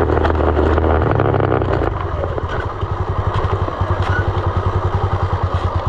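Single-cylinder four-stroke engine of a 2020 SSR 189 dirt bike running at steady revs, then backing off about two seconds in to a lower, evenly pulsing putter.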